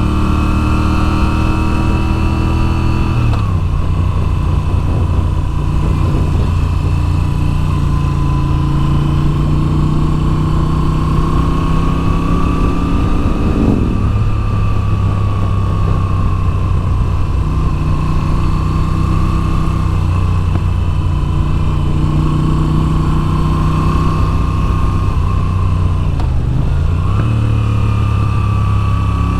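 Moto Guzzi V7's air-cooled 853 cc V-twin engine running under changing throttle. Its pitch drops suddenly a few seconds in, glides down about halfway through, and dips and climbs again near the end, as the rider shifts and rolls on and off the throttle through the bends.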